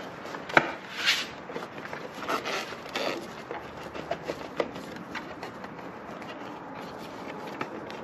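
Motorcycle plastic fairing panels being worked loose by hand: rubbing, scraping and small clicks of plastic on plastic, with a sharp knock about half a second in. The handling grows sparser after about four seconds.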